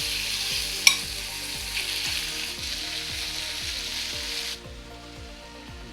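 Small pieces of boneless chicken sizzling in hot olive oil in a pan, a dense steady hiss that stops suddenly about four and a half seconds in. There is one sharp tap about a second in.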